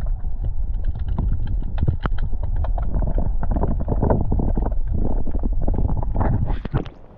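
Footsteps and rustling as a person moves along, irregular knocks over a heavy low rumble. It stops abruptly near the end.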